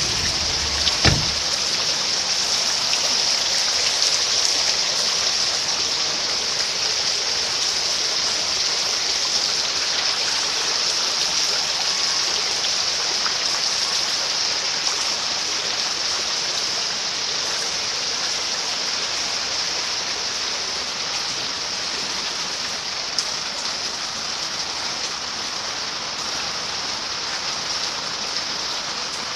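Heavy rain pouring down steadily onto flooded ground, with a brief knock about a second in.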